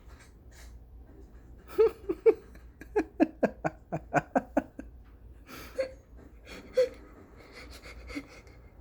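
A person laughing in short pitched bursts: a couple of laughs, then a quick run of about five a second, then a few more scattered ones.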